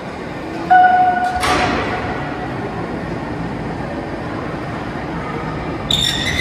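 A 35-ton overhead crane moving a suspended train car over a steady mechanical running noise. About a second in there is a short loud tone, then a hiss that falls in pitch. Near the end a high metallic squeal sets in.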